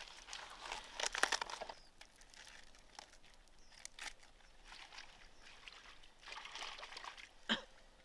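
Fresh vegetables being washed by hand in water: splashing and trickling, busiest in the first two seconds and again near the end, with a brief sharp sound just before the end.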